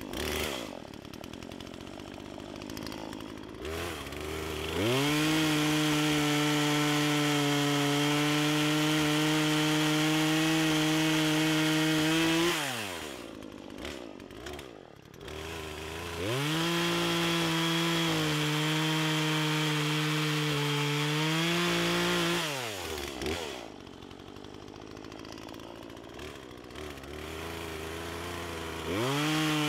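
Poulan Pro PR4218 42cc two-stroke chainsaw cutting through small logs. It idles, revs up and holds a steady high pitch through a cut of about seven seconds, drops back to idle, then makes a second cut of about six seconds. It returns to idle and revs up again at the very end.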